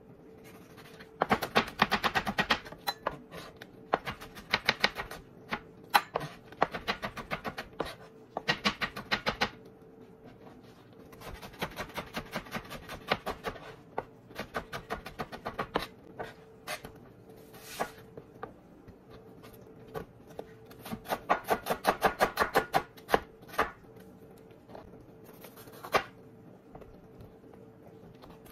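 Chef's knife dicing tomato and green bell pepper on a plastic cutting board: quick runs of knife taps on the board in bursts of a second or two, with short pauses between.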